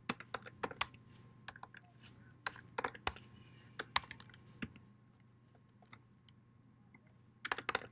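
Typing on a computer keyboard: irregular key clicks, sparser past the middle, then a quick flurry of keystrokes near the end.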